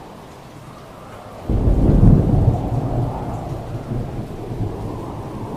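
Steady rain with a thunderclap that breaks in sharply about a second and a half in, loudest just after, then rumbles away over the next few seconds.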